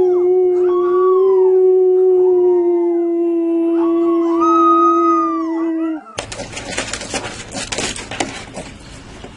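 A dog howling: one long steady howl held for about six seconds, with shorter, higher howls rising and falling over it. It cuts off abruptly and gives way to a loud rushing noise with scattered knocks.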